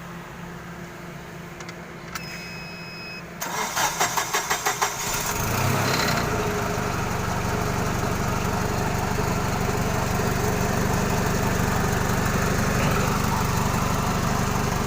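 A short electronic beep, then a forklift's engine cranked by its starter in quick rhythmic pulses for about a second and a half; it catches and settles into a steady idle, running on its own after its burnt power supply wire was replaced.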